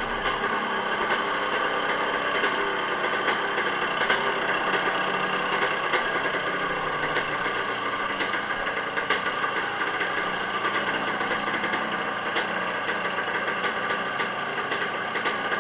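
Freshly rebuilt two-stroke dirt bike engine idling steadily.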